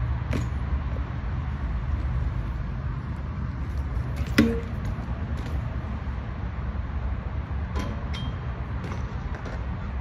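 BMX bike riding a concrete ledge over a steady low rumble: one loud metallic clank with a short ring about four and a half seconds in, and a few lighter clicks near the start and the end.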